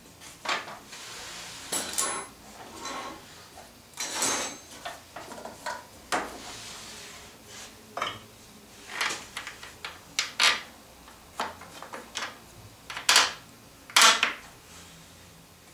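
Irregular knocks, clinks and scrapes from handling a DeWalt benchtop table saw: its steel tube frame shifts on a plywood base, and small wooden blocks are set against the tube. The two sharpest knocks come near the end.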